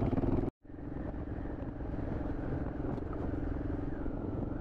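Kawasaki KLR650's single-cylinder four-stroke engine running at a steady speed while riding, with a rough low rumble under a steady engine note. The sound cuts out completely for a moment about half a second in, then resumes.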